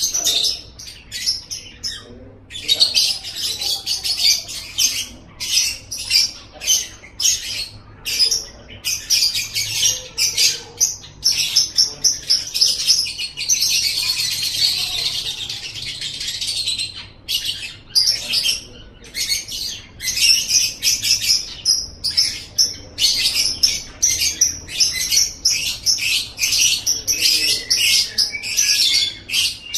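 Lovebird ngekek: long runs of rapid, shrill chattering calls, repeated many times a second. There is a brief break about two seconds in, and an unbroken stretch of chatter from about twelve to seventeen seconds in.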